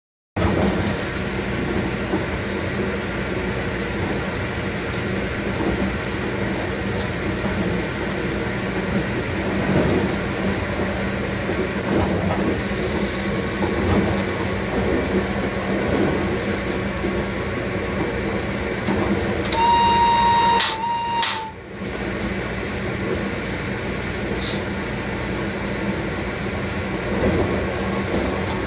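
Cab noise of an E652 electric locomotive on the move: a steady hum with wheel-on-rail rumble and scattered clicks. About twenty seconds in, a steady high-pitched tone sounds for about a second, then a brief second blip.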